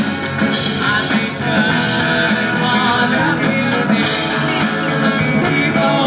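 A live band playing: a singer over amplified acoustic and electric guitars with a steady beat.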